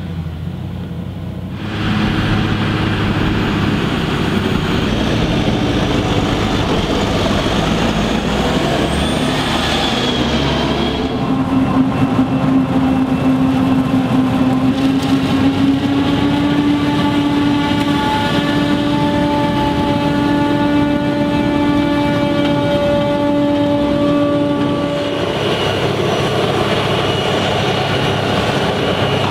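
Krone BiG X 650 forage harvester chopping maize, a loud steady machine noise. About a third of the way in a steady high whine rises over it, and it drops away a few seconds before the end.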